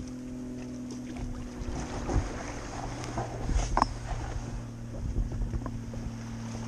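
Kayak hull bumping and scraping over wet sand as it is pulled up a beach, with the loudest knocks about two seconds in and again around three and a half seconds in, over a steady low hum.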